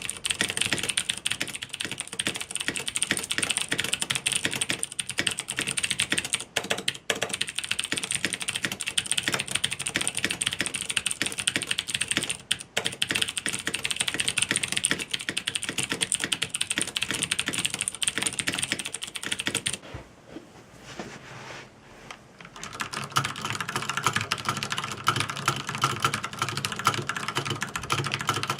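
Fast, continuous typing on mechanical keyboards: a board with stock Cherry MX blue switches and PBT keycaps, a pause of about two seconds some twenty seconds in, then typing resumes with a different, lower, fuller sound from a board with stock Cherry MX brown switches.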